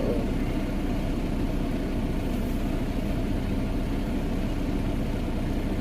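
Concrete mixer truck's diesel engine idling steadily, a constant low rumble.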